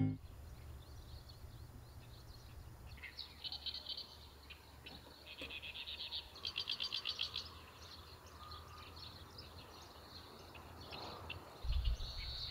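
Faint outdoor birdsong: small birds chirping, with a few quick trills in the middle. A steady low hum runs under it, and a low rumble joins near the end.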